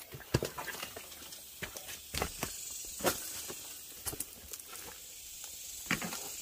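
Footsteps crunching and knocking on scattered scrap and debris, irregular, about one sharp knock a second. A steady high hiss sits behind them from about two seconds in.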